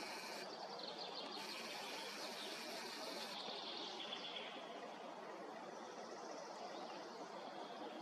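Forest ambience: a steady hiss with faint birdsong, mostly in the first half.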